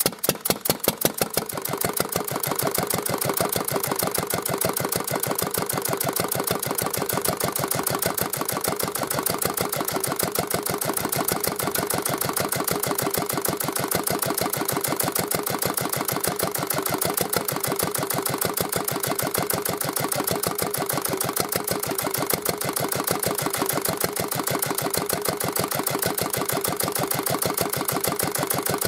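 Old Yanmar single-cylinder stationary diesel engine firing up, its beats quickening and growing louder over the first couple of seconds. It then settles into steady running with a fast, even chug.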